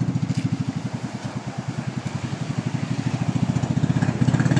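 Small engine of a motorized outrigger banca running with a rapid, even putter as the boat pushes out through the surf. It drops a little in level and then grows louder again near the end.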